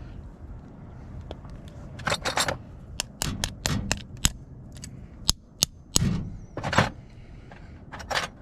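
Parts of an Amazon Basics lever handle clicking and scraping as they are fitted back together by hand. About two seconds in, a run of sharp clicks and scrapes begins and continues irregularly until near the end.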